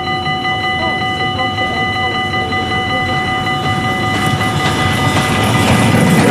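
Level crossing warning bell ringing with a steady pulse as a steam locomotive approaches. The locomotive's rumble and wheel noise on the rails grow louder and drown out the bell near the end, as it reaches the crossing.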